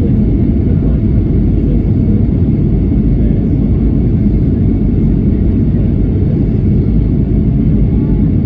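Steady low rumble inside the cabin of a Boeing 757-200 descending on approach to land: engine and airflow noise heard from a window seat over the wing.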